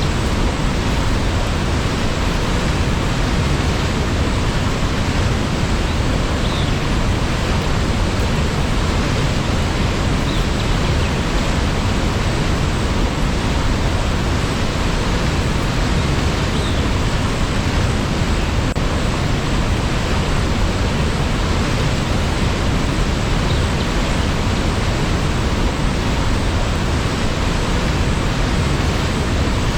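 Waterfall rushing: a loud, steady roar of falling water with no change.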